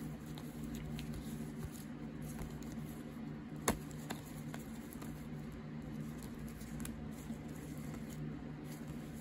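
Stack of 1990s basketball trading cards flipped through by hand: a faint patter of small ticks and rustles as each card slides off the stack, with one sharp click about three and a half seconds in. A steady low hum sits underneath.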